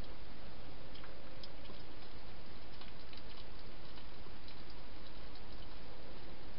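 Steady hiss with a few faint, irregular clicks: a wild hedgehog chewing food inside a clear plastic feeding box.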